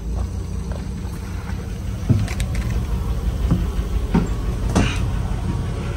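International Red Diamond 501 inline-six engine of a 1949 Crown Supercoach school bus idling with a steady low hum. A few short knocks and thumps are heard inside the bus, the loudest about two seconds in and near the end.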